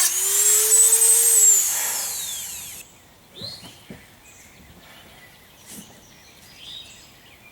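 Dremel 3000 rotary tool whining at high speed as it grinds aluminium welds, then switched off about a second and a half in, its pitch falling as it spins down and fades out. Faint bird chirps and a few small clicks follow.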